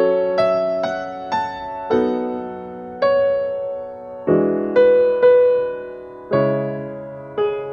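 Slow, gentle piano music: single notes and chords struck about once a second, each ringing and fading.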